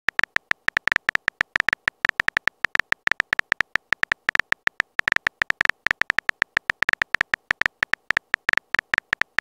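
Simulated phone-keyboard typing sound effect from a texting-story chat animation: a rapid, slightly uneven run of short ticking beeps, about eight a second, one per letter as a message is typed out.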